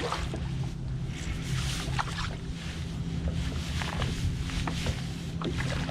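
Splashing and irregular knocks on a plastic fishing kayak as a hooked bass is fought and brought alongside, over a steady low hum.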